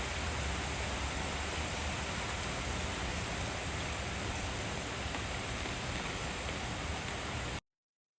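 Steady rain falling, a constant even hiss that cuts off abruptly near the end.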